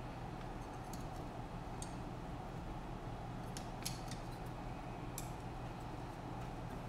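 A few scattered light clicks and taps from a drone frame and its small parts being handled, over a steady low hum.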